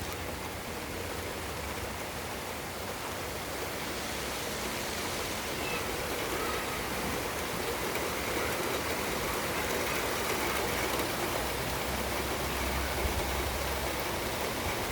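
Steady rain, an even rushing hiss that grows slightly louder over the stretch.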